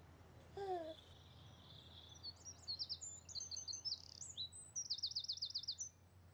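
Songbirds chirping and warbling in quick high notes, ending in a fast trill of about nine notes. Near the start a baby gives a short falling coo.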